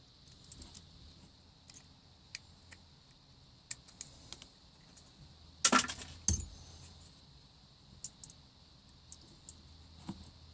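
Light metallic clicks and clinks of a Kwikset lock and its small parts being handled for rekeying, with two louder clatters about six seconds in.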